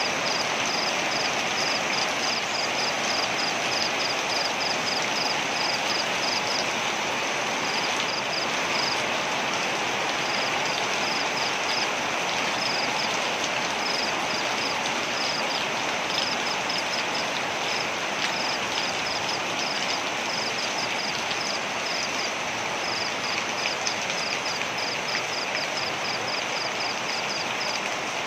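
Waterfall rushing steadily, with a high, repeated chirping of about three pips a second in runs that stop and restart, from an insect or frog.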